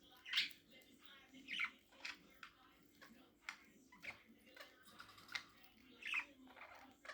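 Pet budgerigars chirping and chattering: a string of short calls, several sliding down in pitch, the loudest about half a second in.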